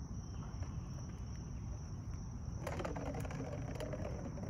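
Faint outdoor ambience: low wind rumble on the microphone and a steady high insect drone. About two and a half seconds in, a light scraping, rattling sound starts.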